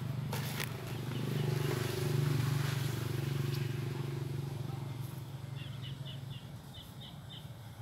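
A low steady hum swells over the first two seconds, then fades away about six seconds in. Near the end comes a quick run of short high chirps, about four a second.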